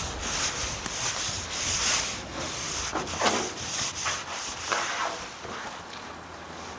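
Hand rubbing strokes over the camper box's panel wall, cleaning the surface before it is painted: a scratchy rub repeated about two to three times a second, dying away near the end.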